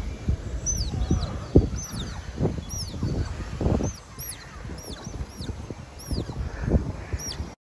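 Smooth-coated otters squeaking: a string of short, high, arching chirps, about two a second, over wind rumble on the microphone.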